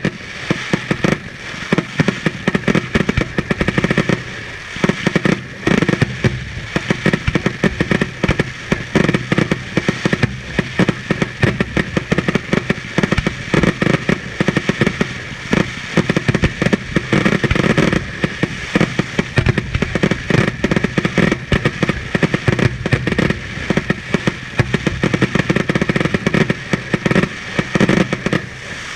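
Fireworks display: aerial shells bursting in a dense barrage, loud bangs following one another several times a second with hardly a pause.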